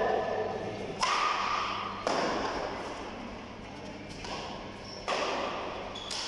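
Badminton rackets striking a shuttlecock in a doubles rally: about five sharp hits roughly a second apart, each echoing briefly in the hall.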